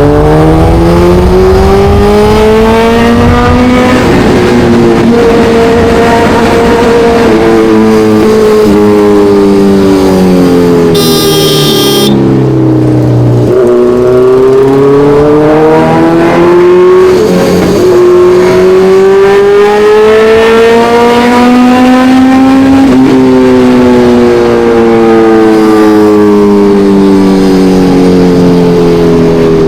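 Kawasaki Ninja 1100SX inline-four motorcycle engine under way, heard from the rider's seat. Engine speed climbs at the start, winds down until about halfway, climbs again, then winds down near the end. A brief high-pitched tone sounds just before the midpoint.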